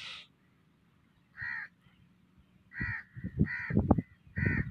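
A crow cawing repeatedly: about five short harsh caws roughly a second apart. Low muffled thumps come underneath during the second half.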